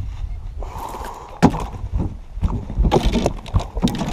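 Sharp knocks and clatter on a bass boat with some water splashing as a fish is brought aboard on the line, the loudest knock about a second and a half in, over a steady low wind rumble on the microphone.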